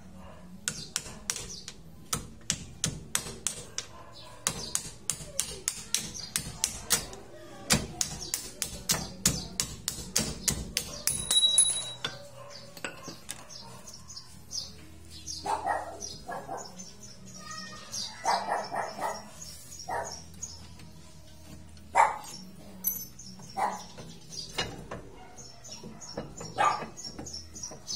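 Repeated hammer blows on steel, two or three a second, knocking a front suspension ball joint loose from its knuckle without a separator tool. The blows run for about the first eleven seconds and the last one is the loudest and rings. After that come only scattered knocks.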